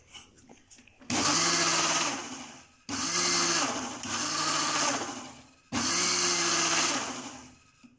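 Indian mixer-grinder (mixie) run in three short pulses, each starting abruptly and winding down, as it churns milk cream (malai) with chilled water in its steel jar. This is the churning stage in which the butter separates from the buttermilk.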